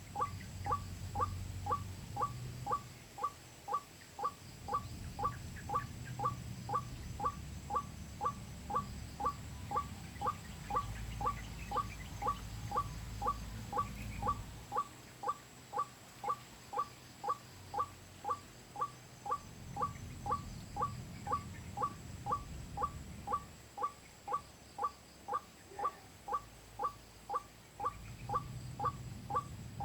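Recorded white-breasted waterhen (ruak-ruak) call played on a loop from a phone speaker as a hunting lure: a short sharp note repeated evenly, nearly twice a second. A low rumble comes and goes underneath.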